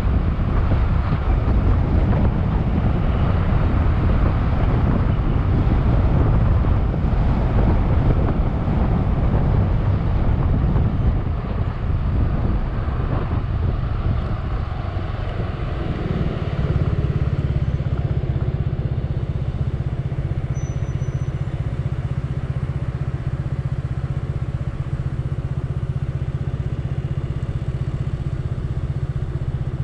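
Scooter riding with engine drone and wind rush on the mount-camera microphone. About halfway through it slows and settles into a steady low engine idle.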